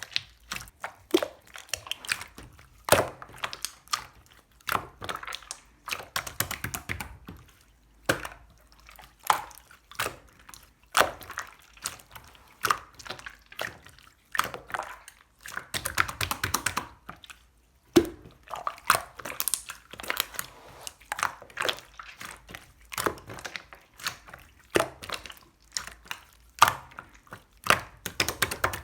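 Slime being squished, pressed and stretched by hand, giving irregular wet clicks, pops and crackles every second or so.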